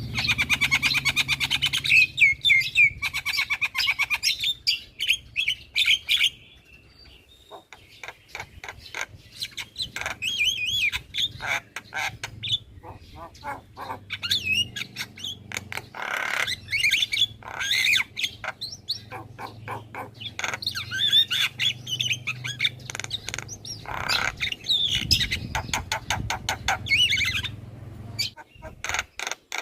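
Javan myna chattering almost nonstop: rapid clicks, harsh rasping notes and whistled phrases, with a short lull a few seconds in. A steady low hum runs underneath.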